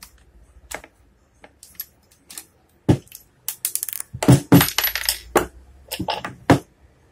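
Angle grinder's motor housing knocked repeatedly, open end down, on a wooden workbench to free the broken upper bearing's cover stuck inside the case: about a dozen sharp knocks with a metallic ring, starting about three seconds in and stopping shortly before the end. Before them come a few light metal clicks from pliers at the housing.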